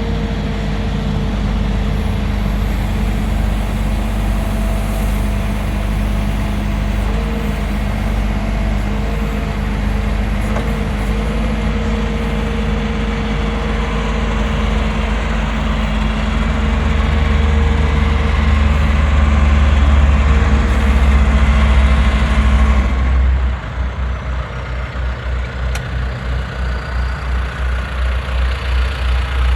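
John Deere 410J loader backhoe's diesel engine running steadily, its note growing heavier and louder about halfway in as if under load. About two-thirds of the way in it drops to a lower, pulsing idle.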